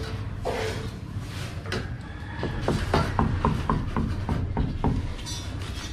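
A quick run of light, sharp knocks, about four a second, starting about two and a half seconds in and stopping shortly before the end, over a steady low rumble.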